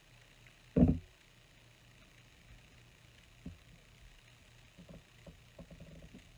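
A single dull thump on the tabletop about a second in, then faint paper rustling and light taps as glued card-stock pieces are pressed together by hand.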